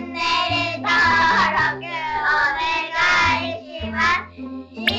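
Outro song: a high, child-like singing voice over a bass line, with the singing dropping away about four seconds in.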